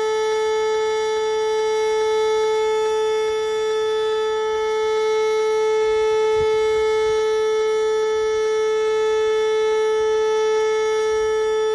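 Whelen WPS 2909 electronic siren sounding its steady alert signal: one loud, unchanging tone with no rise or fall in pitch. This system used the alert signal for severe thunderstorm warnings.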